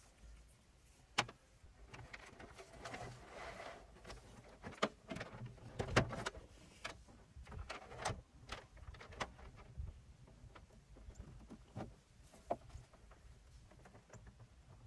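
Hands handling and fitting wires and connectors: scattered light clicks, taps and rustling, with sharper knocks about one second and six seconds in.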